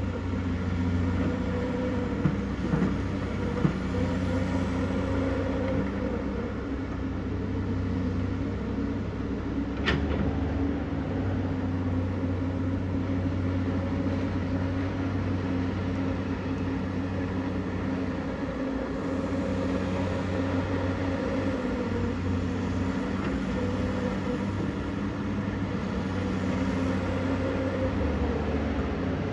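Komatsu PC210LC excavator's diesel engine running steadily under hydraulic load, its note rising and falling a little as it works. A few short knocks come in the first few seconds, and a sharp click about ten seconds in.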